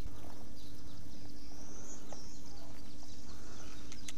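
Birds chirping with short calls and an upward-sliding whistle about two seconds in, over a steady low outdoor rumble. A few sharp clicks come near the end.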